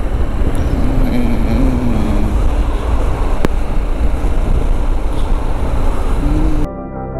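Motorcycle on the move, heard through heavy wind rumble on the microphone, with the engine note wavering underneath. Shortly before the end it cuts abruptly to organ music.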